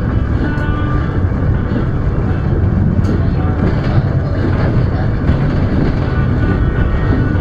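Kintetsu Nishi-Shigi Cable funicular car running downhill on its rails: a steady rumble of wheels on track with a couple of faint clicks.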